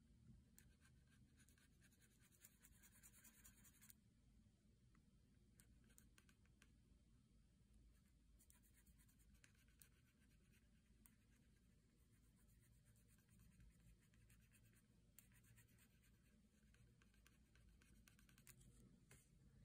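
Faint scratching of a pencil on paper as shading strokes are laid down in quick back-and-forth runs. It comes in several spells with short pauses between.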